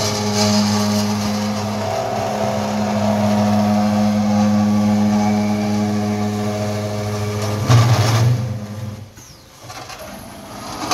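Slow-speed cold saw cutting through a 120x60 mm steel rectangular tube: a steady motor hum under the noise of the blade in the metal. About eight seconds in there is a brief louder burst, then the sound drops away as the cut ends.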